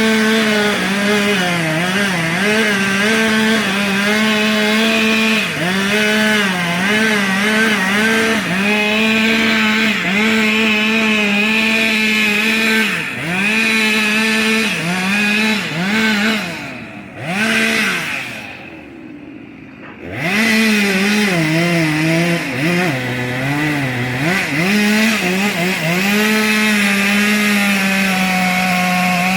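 Two-stroke chainsaw running at high throttle while cutting wood. Its pitch dips again and again as the chain bogs into the cut. It eases off twice for a moment past the middle, then revs back up and carries on cutting.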